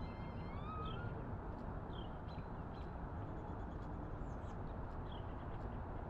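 Faint background birdsong: a few rising whistles in the first second, then short high falling chirps about one, two and five seconds in, over a steady low rumble of outdoor background noise.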